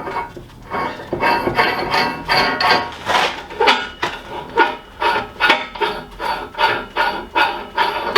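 Hammer tapping on steel parts: a regular run of sharp metallic knocks, about two a second, each with a short ring.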